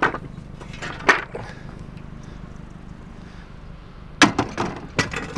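Junk being handled in a car trunk: a knock at the start and another about a second in, then a run of clattering and rattling from about four seconds in.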